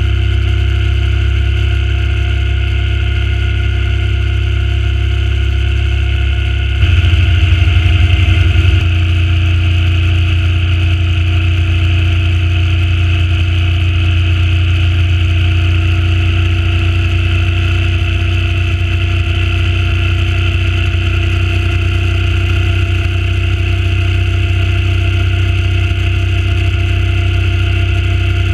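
Suzuki Intruder C800's V-twin engine running steadily at cruising speed on the road. About seven seconds in its note steps up and gets louder for a couple of seconds, then settles back to a steady drone.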